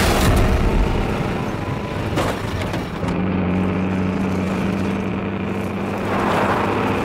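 Peterbilt 281 tanker truck's diesel engine running hard with a steady low drone as it shoves a burning car, with a loud bang right at the start and another about two seconds in.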